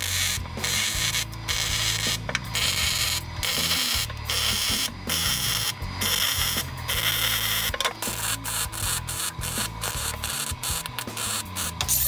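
Electric welding arc crackling and hissing in short runs, cutting off and starting again about once a second, more often toward the end: stitch welds being laid along the seam of a new steel floor pan on a VW Beetle.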